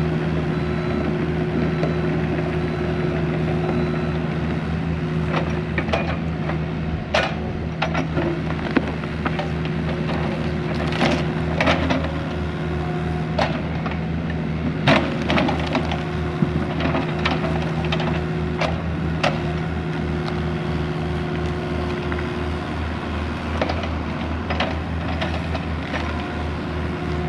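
Small excavator's diesel engine running steadily under load while tree roots crack, snap and splinter as the machine pulls and tears them apart, with repeated sharp snaps throughout.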